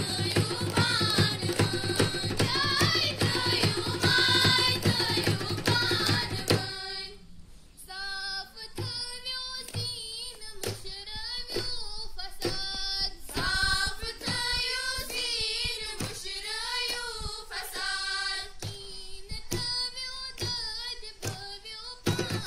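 Girls singing a song to a hand drum beaten in a quick steady rhythm. About a third of the way in the drumming drops back to occasional strokes and the singing carries on more clearly, and right at the end the full drumming returns.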